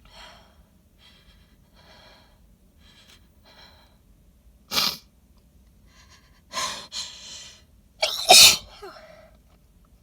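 A woman's pollen-triggered sneezes into cupped hands, wet and messy: a few faint, short catching breaths, then three sneezes in quick succession, the last the loudest.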